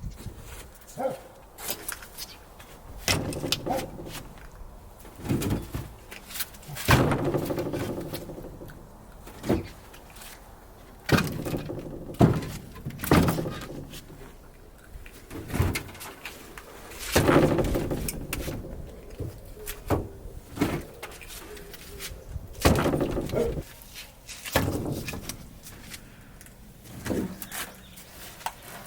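Split pieces of unseasoned firewood knocking and clattering together as they are handled and stacked, a dull wooden thunk every second or two at uneven intervals.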